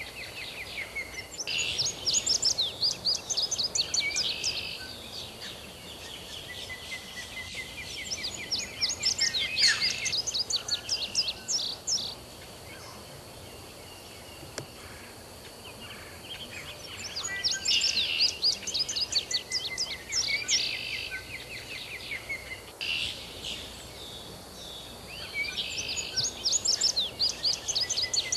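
A bird singing outdoors: rapid trilled phrases of quick high notes, each lasting three to four seconds and repeated about every eight seconds, over a faint steady high tone and background hiss.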